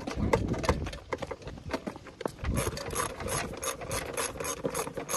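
Ratchet wrench clicking while loosening a bolt on a riding mower. The clicks are irregular at first, then come in a fast even run from about halfway through.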